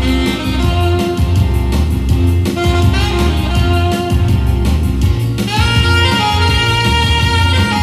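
Saxophone playing a melody over a pop backing track with bass and drums; about five and a half seconds in it moves to a new, higher held note.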